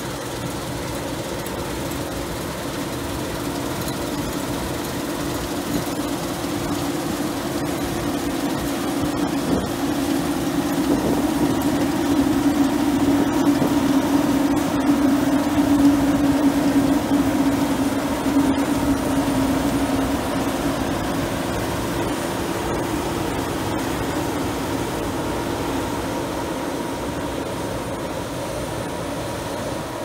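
CLAAS Lexion 530 combine harvester cutting and threshing barley, its engine and threshing machinery running with a steady drone. The sound grows louder as the machine passes close by about halfway through, then eases off as it moves away.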